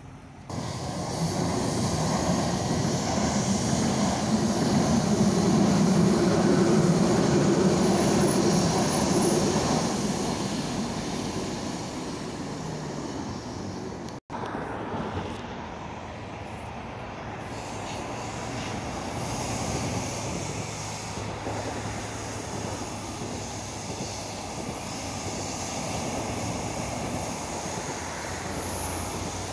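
City bus engine running as the bus drives by, loud for the first ten seconds and then fading. After a brief cut, a quieter steady rolling noise from a passing train on the tracks.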